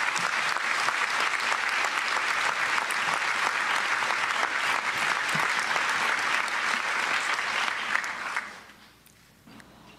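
Large audience applauding steadily, the clapping dying away about eight and a half seconds in.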